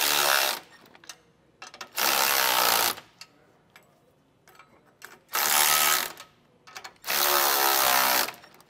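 A power tool driving a 9/16-inch socket on an extension, running the nuts down onto the U-bolts of a steering-stabilizer axle bracket to snug them up. It runs in four short bursts, each under about a second, with pauses between.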